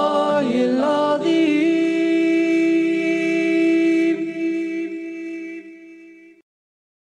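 Male voice singing an Islamic nasheed. The voice moves between notes, then holds one long note that fades and stops about six seconds in.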